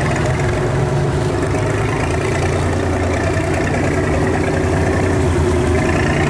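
The engine of a river cargo barge running steadily close by, a low, even engine note with no change in speed.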